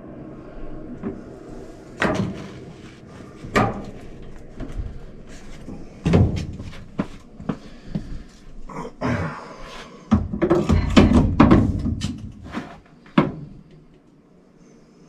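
Irregular knocks, clicks and clatter of PVC pipe, fittings and a can of PVC cement being handled, with a louder stretch of scraping and rustling about ten seconds in.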